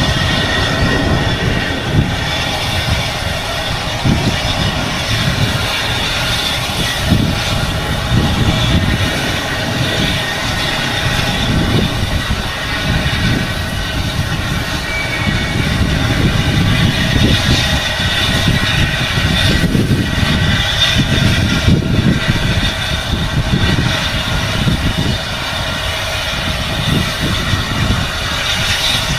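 A South African Railways Class 24 steam locomotive and its wagons running along the line: a continuous, uneven low rumble with a steady high whine held over it.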